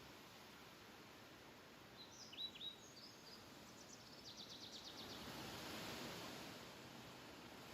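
Faint wind rustling through grass, swelling about five seconds in. A bird gives a few short falling chirps about two seconds in, then a rapid high trill around four seconds in.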